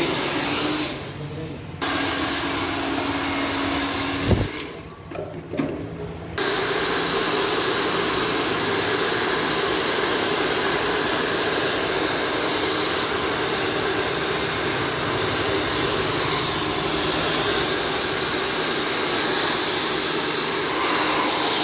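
Handheld hair dryer blowing with a steady rush and hum; it stops and restarts twice in the first six seconds, with a sharp knock about four seconds in. Near the end, short spurts of aerosol hairspray hiss over it.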